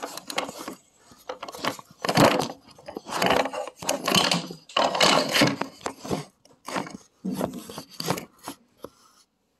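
Irregular scraping and rattling with sharp clicks, handling noise close to the microphone as a guitar cable is plugged in, stopping about nine seconds in.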